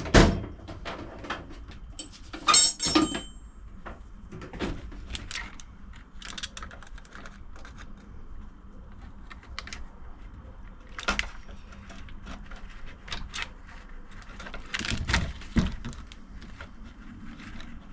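Small hand tools clicking and clinking on the hose clamps and metal parts of a car's in-tank fuel pump assembly, with scattered sharp clicks and knocks. The loudest clatter comes about two and a half seconds in and again around fifteen seconds.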